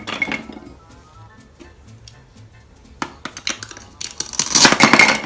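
Hard plastic toy food pieces clacking on a plastic cutting board. About four seconds in, a velcro-joined toy tomato is cut apart with a plastic knife, making a rasping velcro tear that lasts about a second.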